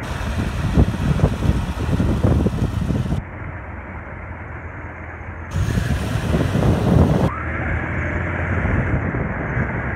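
Wind buffeting a phone microphone held outside a moving Jeep Cherokee, over a steady rumble of road and engine noise. The hard wind rush lasts about three seconds, drops away, and comes back for about two seconds just past the middle.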